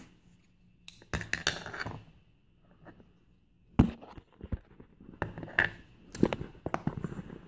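Small metal clicks and clinks from a Yale rim cylinder lock and its tools being handled while the lock is taken apart, with one sharp click near the middle and a quick cluster of them after it.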